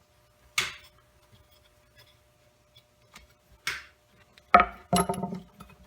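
Hands freeing a part of the circulator pump's wiring fitting: two short scraping rustles, then a quick cluster of knocks and metallic clinks with a slight ring near the end.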